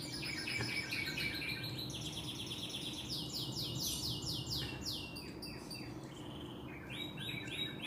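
A songbird singing a fast, varied song: quick trills of repeated down-sweeping notes, switching to a new phrase every second or so.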